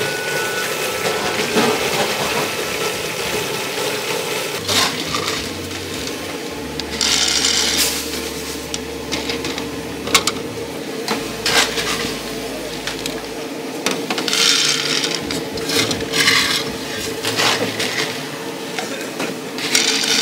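Food preparation: rasping scrapes every few seconds with a few sharp clicks and knocks, over a steady hum.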